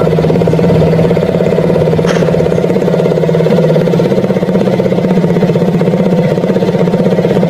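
Small motorcycle engine idling steadily through a homemade exhaust pipe made from a can, with a fast, even exhaust pulse.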